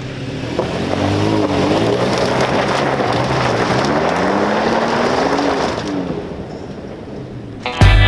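A motor vehicle driving past with its engine revving, the engine note rising and falling amid loud road noise.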